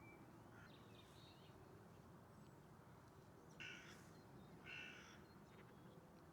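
A bird gives two short, harsh calls about a second apart, over faint outdoor background noise.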